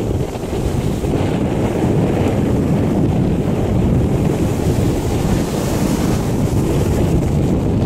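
Strong wind buffeting the microphone over the steady rush of waves around a sailing yacht under way in a rough sea.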